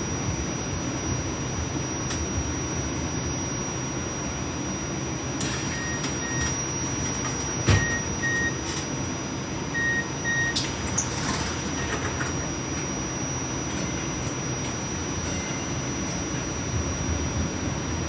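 Cleveland RTA Blue Line light rail car running, heard from inside the car: a steady rumble of the wheels on the track with a constant high electrical whine. There is a sharp knock about eight seconds in, and a few faint short double beeps come in the middle.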